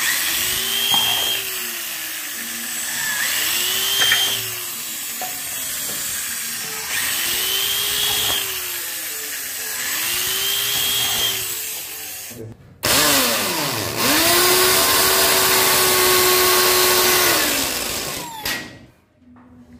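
Corded electric drill boring holes through plastic junction boxes: four short runs that spin up and wind down. After a brief gap comes one longer steady run of about five seconds that winds down near the end.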